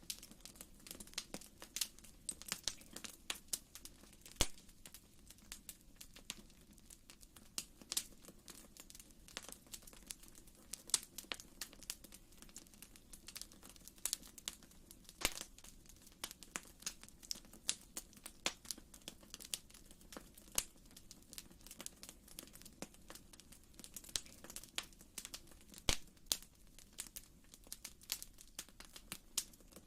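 Fire in a fireplace crackling: irregular sharp pops and snaps, several a second, over a low steady background.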